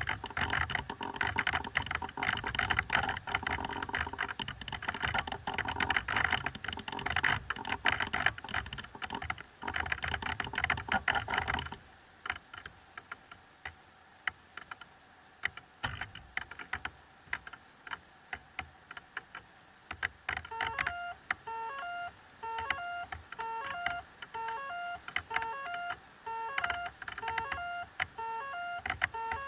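Electronic crackle and clicking with steady tones, which drops away about twelve seconds in to sparse clicks; later a run of short beeps at two or three fixed pitches repeats about twice a second.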